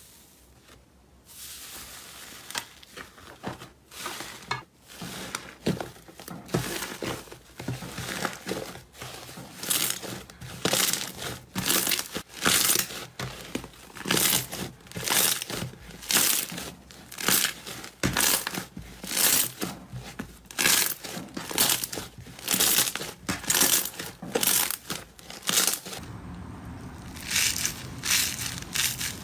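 Crunchy slime being squeezed and pressed, giving crackling crunches in a steady rhythm of about three every two seconds. Near the end a low hum comes in underneath.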